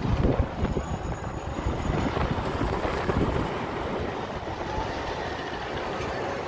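Wind buffeting the phone's microphone, gusting hardest in the first few seconds and then easing, over a steady outdoor background noise.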